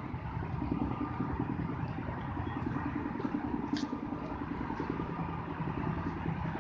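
Steady low rumble of street traffic with an engine running, and one brief high tick about four seconds in.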